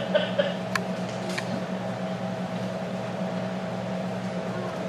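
Steady low electrical hum with room noise, broken by two faint clicks.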